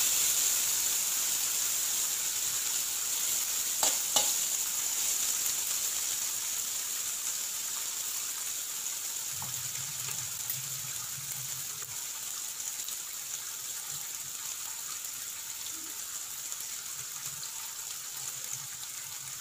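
Oil sizzling in an aluminium kadai as a tempering of mustard seeds, chana dal, cumin and coriander leaves fries, a steady hiss that slowly dies down. Two sharp clicks about four seconds in.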